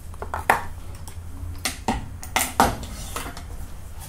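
Sharp metallic clinks and knocks, about six of them, as steel die parts of a bullet-seating press are handled and set back into the press, over a steady low hum.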